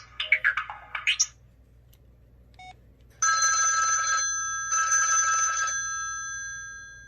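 Samsung Sway flip phone's speaker playing its ringtones. A melodic ringtone finishes in the first second, then a short beep. A telephone-bell ringtone then rings twice, about a second each, and its tones fade away near the end.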